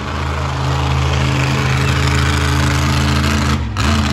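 A monster truck's engine runs loudly at a steady throttle. About three and a half seconds in, it briefly drops in pitch and dips, then picks back up.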